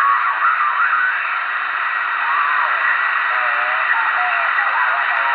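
Ferris SSB-5000 CB radio receiving the 27 MHz band through its speaker: steady static hiss with faint, distorted distant voices whose pitch slides up and down as the clarifier knob is turned.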